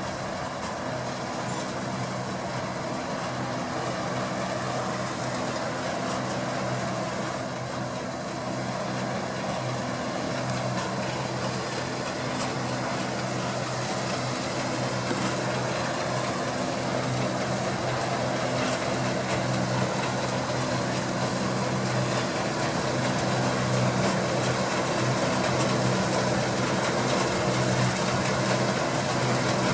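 Deutz-Fahr 6060 combine harvester running steadily as it harvests wheat: a constant engine drone with threshing noise over it, slowly growing louder.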